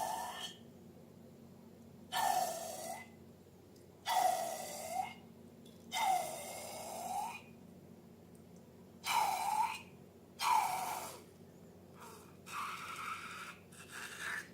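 Air hissing out in a series of short puffs, about eight in all, each lasting roughly a second with short pauses between.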